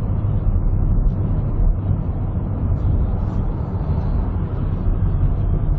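Steady low rumble of a car being driven, engine and road noise picked up by a dashcam microphone inside the cabin.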